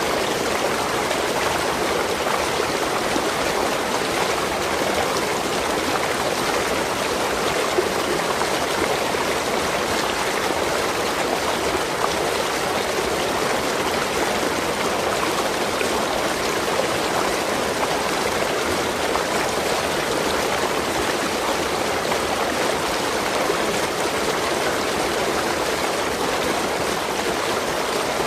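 Waterfall or cascading stream: a steady rush of falling and running water.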